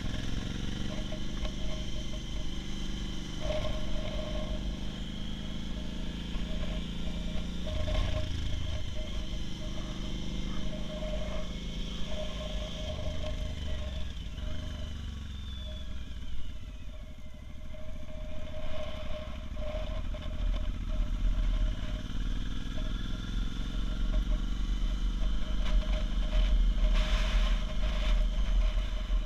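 Motorcycle engine running under way, its revs rising and falling through the bends, with a dip about halfway through. Wind rumble on the helmet-mounted microphone grows stronger in the second half.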